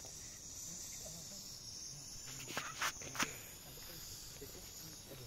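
Footsteps crunching on dry dirt and gravel, a few quick steps a little past halfway, over a steady high hiss.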